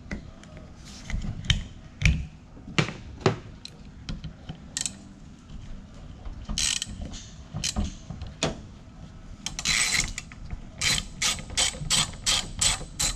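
Ratchet wrench clicking in short spells of sharp clicks, with a quick run of clicks near the end and a couple of brief rasping scrapes, working a fastener on the rear wiper of a 2004 Scion xB.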